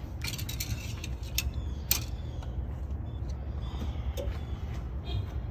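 Oil dipstick being drawn out of its tube in a Honda S2000's engine bay: a run of sharp clicks and scrapes in the first two seconds, then a few fainter ones, over a steady low rumble.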